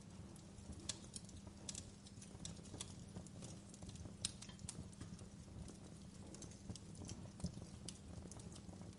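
Fireplace crackling: irregular small pops and snaps over a steady low rumble of burning, with one sharper pop about four seconds in.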